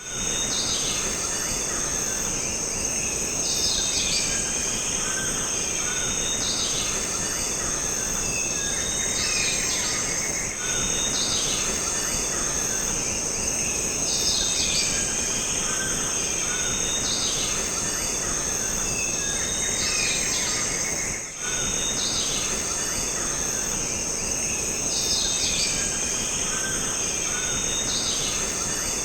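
Jungle ambience: a steady high-pitched insect drone with bird calls repeating every couple of seconds over an even background hiss, briefly dipping about two-thirds of the way through.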